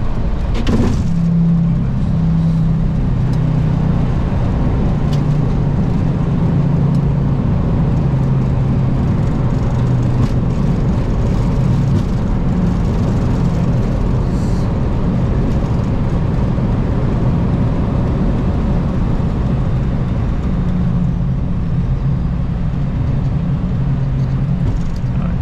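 Steady aircraft noise inside a Boeing 737-800's flight deck: engine and airflow noise with a low drone that shifts slightly in pitch.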